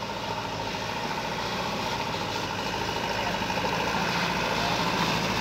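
Diesel engine of a Hino 300 series light truck running steadily at low revs as it drives slowly closer through mud, getting louder as it approaches.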